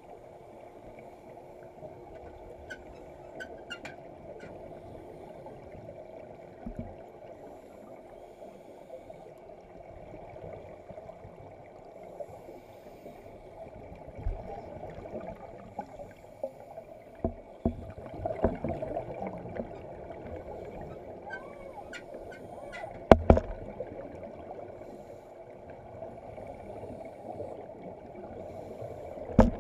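Muffled underwater sound in a pool, heard through an underwater camera: a steady dull hum and wash with the bubbling of a scuba diver breathing out through her regulator. Scattered clicks and knocks, the sharpest one about three quarters of the way through.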